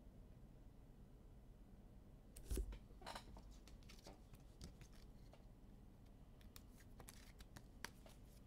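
Faint handling of trading cards and their pack wrappers: a sharper snap about two and a half seconds in, then scattered light clicks and rustles.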